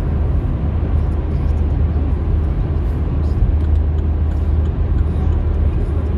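A car being driven: a steady low rumble of road and engine noise.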